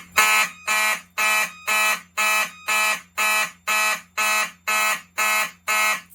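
Fire alarm horns, Wheelock and Simplex notification appliances, sounding together in a loud, buzzy pulse about twice a second without pause. This is the general alarm set off by pulling a Silent Knight addressable pull station.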